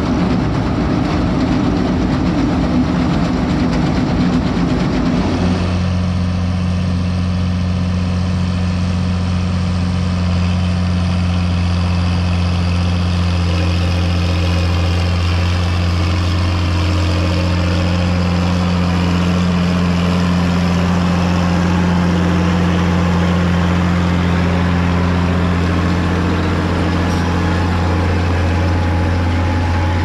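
Large farm diesel engine running under steady load. For the first five seconds it comes with heavy rattling, then it settles into a steady, even hum.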